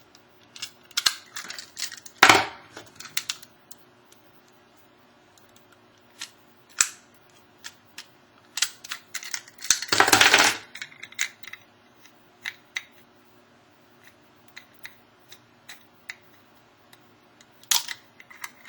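Metal clicks and short rattles of a combination lock being worked open with a bobby pin, with louder clattering clusters about two seconds in and about ten seconds in.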